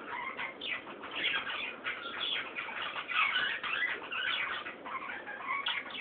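A flock of caged budgerigars chattering: a dense run of short, overlapping chirps and warbles, busiest through the middle.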